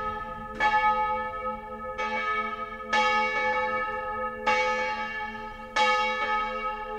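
Church bell ringing: a strike about every second and a half, five in all, each stroke ringing on into the next over a steady low hum.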